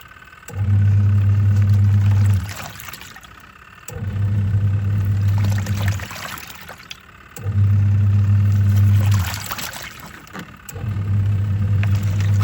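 Twin-tub washing machine's wash tub running: the pulsator motor hums in four runs of about two seconds with short pauses between as it switches direction, with water sloshing through the load.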